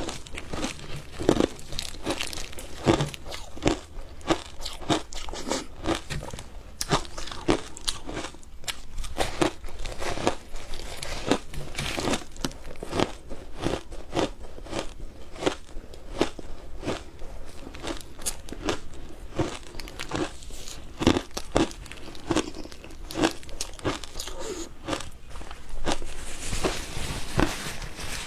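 Ice being bitten and chewed close to the microphone: a continuous, irregular run of sharp crunches, several a second.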